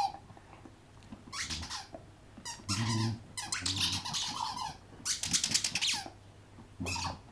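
A dog's squeaky toy squeaking in rapid runs as it is chewed, in five bursts of about half a second to a second each with short pauses between them.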